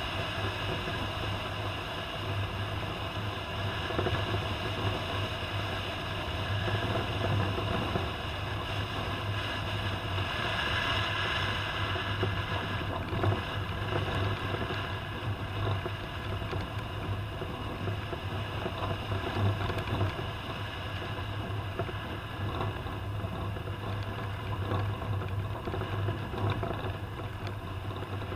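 Toyota Land Cruiser driving, its engine a steady low hum under continuous road and wind noise.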